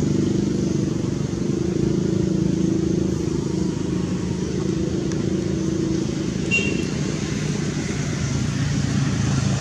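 Steady low hum of motorbike and car engines from road traffic, with a brief high squeak about six and a half seconds in.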